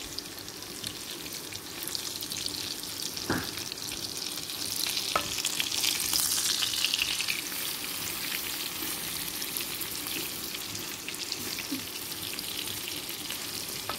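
Salmon fillets frying in butter in a pan: a steady sizzle that swells louder about five to seven seconds in. A single light knock sounds about three seconds in.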